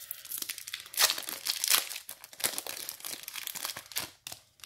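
Plastic wrapper of a basketball card pack crinkling and tearing as it is peeled open by hand and the cards are slid out, in a run of irregular crackles, loudest about a second in.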